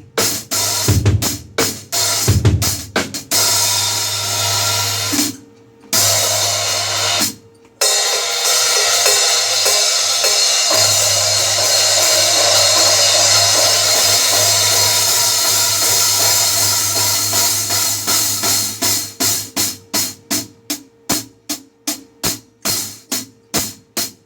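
A Zeus Custom 14-inch B20 bronze cymbal played on a drum kit: a few strikes with kick drum at first, then a long sustained ringing wash that is choked off twice. Near the end comes a run of quick, evenly spaced strikes, about three a second.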